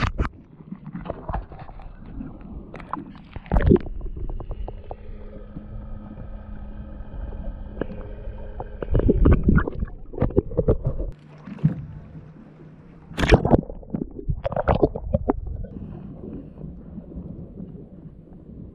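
Water sloshing and gurgling over a camera held at the water's surface, with irregular knocks and splashes, the loudest a little past the middle. A faint steady hum runs under it for several seconds in the middle.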